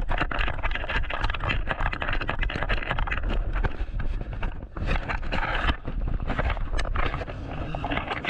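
Running footsteps on a paved path, quick and close, over a low wind rumble on the microphone.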